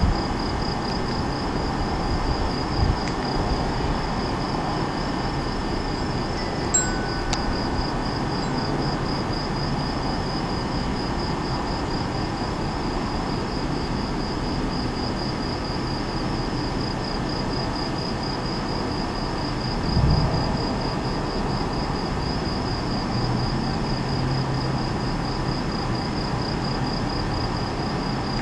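A night insect chorus of crickets or katydids chirping in a steady, rapid pulse, over a steady low background rumble. A short, low rumble of distant thunder comes about twenty seconds in.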